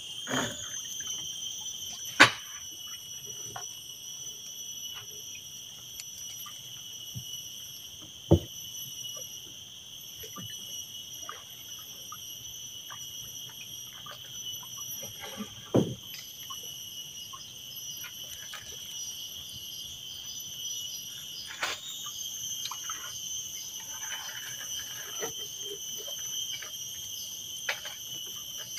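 A steady, high-pitched insect chorus drones on throughout, with four sharp knocks spread through it.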